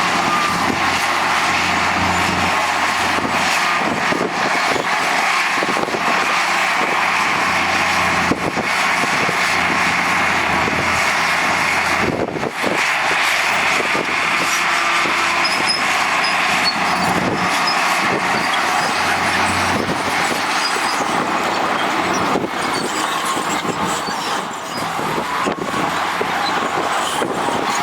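Heavy construction machinery engines running steadily under load, with a few scattered knocks.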